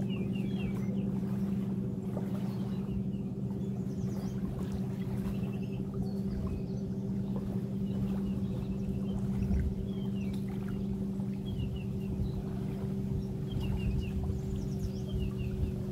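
Steady drone of a motorboat engine out on the lake, holding one pitch throughout, with wind rumbling unevenly on the microphone and short high chirps every second or two.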